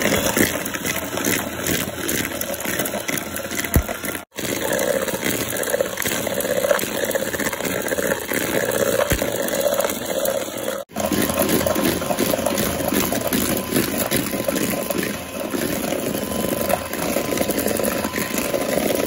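Electric hand mixer running steadily, its twin beaters whirring and rattling in a bowl as they whip instant coffee, sugar and hot water into a thick coffee foam. The sound drops out for an instant twice, about four and eleven seconds in.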